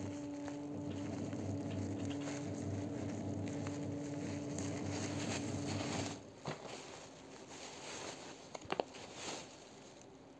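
A steady mechanical hum from a motor that cuts off suddenly about six seconds in. After it comes soft rustling with a few sharp clicks, from packaging being handled.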